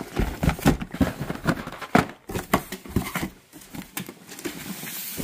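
Cardboard boxes and boxed candy being handled, with short knocks and rustles of card against card. Near the end a box cutter slices along the packing tape of a cardboard carton.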